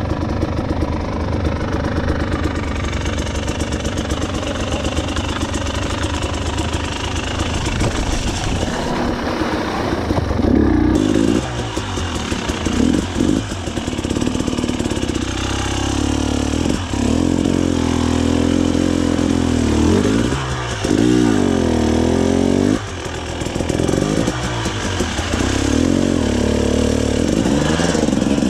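A KTM 300 TPI two-stroke enduro dirt bike engine running under way on a muddy trail. In the second half the throttle opens and closes repeatedly, so the revs swell up and drop back in a string of surges.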